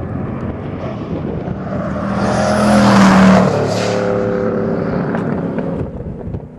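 Mosler supercar with a twin-turbocharged 427 cubic inch LSX V8 driving past at speed: the engine note builds to its loudest about three seconds in, then drops in pitch and fades as the car goes away.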